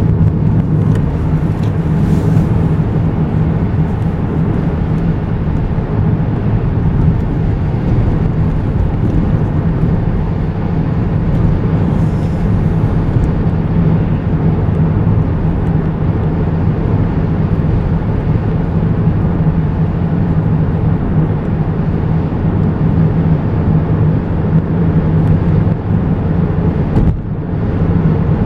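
Car driving on the road, heard from inside the cabin: a steady low engine drone under even road and tyre noise, dipping briefly near the end.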